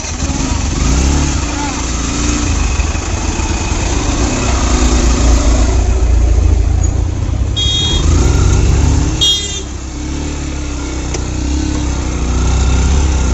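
A Yamaha motorcycle riding along a road, its engine running under a steady low rumble. Two short horn beeps sound a little past halfway.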